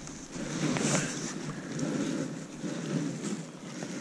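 Wind buffeting the camera's microphone: a gusty low rumble that swells and fades every second or so. A couple of faint clicks show up around a second in and again near the end.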